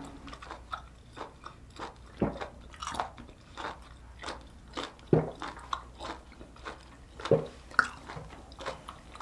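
Close-miked chewing of boiled octopus: wet, irregular mouth clicks and smacks, a few of them louder than the rest.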